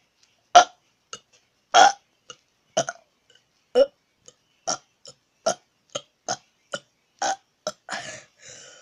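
A person burping a rapid string of short burps, about two a second, with a longer one near the end.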